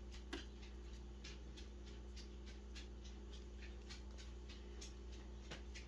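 Faint small clicks and taps of jewelry pliers and wire being handled, scattered irregularly over a low steady hum.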